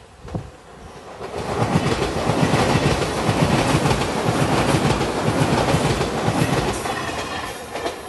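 Five-car JR Shiokaze limited express train passing, its wheels clicking rhythmically over the rail joints. The sound swells about a second in, is loudest through the middle and fades near the end.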